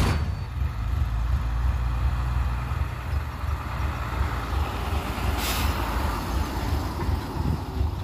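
Loaded Hyundai dump truck's diesel engine running steadily with a low rumble as the truck drives slowly along a dirt track, with a short hiss about five and a half seconds in.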